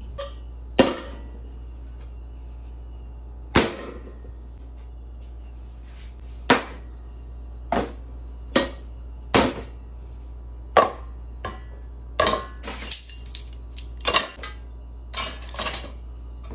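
Metal kitchen utensils and stainless pans knocking and clinking on a steel counter as they are set down and piled into a saucepan: about a dozen sharp, irregular knocks, some briefly ringing, over a steady low hum.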